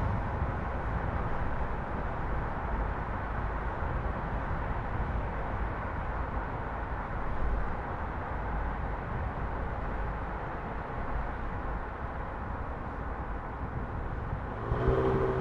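Steady road noise of a car driving, a mix of tyre and wind noise. Near the end a pitched hum with overtones comes in and grows a little louder, like another vehicle's engine passing.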